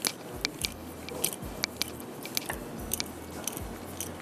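Wooden rolling pin rolling out thin pizza dough on a counter, with many light, irregular clicks and knocks as it works, about two or three a second.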